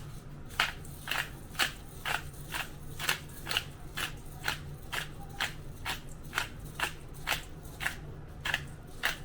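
Black pepper grinder being twisted, grinding peppercorns in regular crunchy strokes about two a second.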